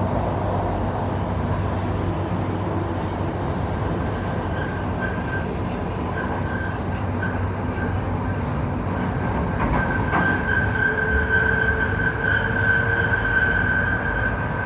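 Rotterdam metro train running along its track, heard from inside the carriage as a steady loud rumble. A thin high whine joins in on and off from about four seconds in and grows louder and continuous from about ten seconds in.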